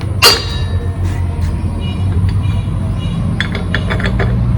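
Metal tools clinking as a car jack is set up: one sharp ringing clank about a quarter second in, then a quick run of light metallic clicks near the end, over a steady low rumble.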